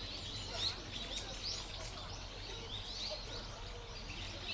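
Small birds chirping: many short, quick calls overlapping throughout, over a faint steady low background hum.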